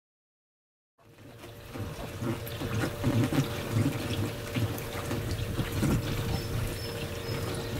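Water splashing and running, with a steady hum underneath, starting about a second in after silence.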